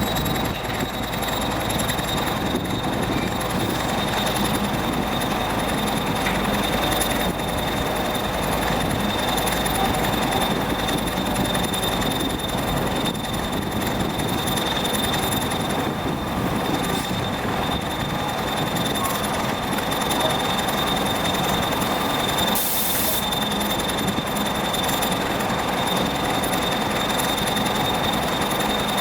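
Old Soviet EO-5111B excavator with a pile-driving rig running: steady, loud machinery noise with a constant high whine.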